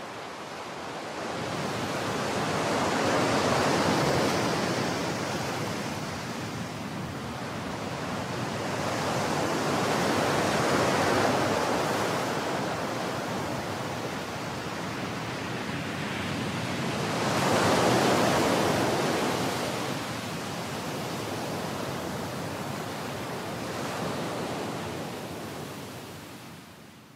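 Sea surf breaking on a sandy beach, a steady rush that swells with each wave about every seven seconds, three big swells in all. It fades out near the end.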